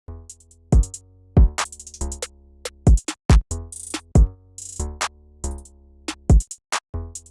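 Electronic music played on the Ascension Synth software synthesizer: sustained synth bass and chords over a drum-machine beat, with a heavy kick drum roughly every two-thirds of a second and crisp hi-hat and snare hits. It starts right after a brief silence.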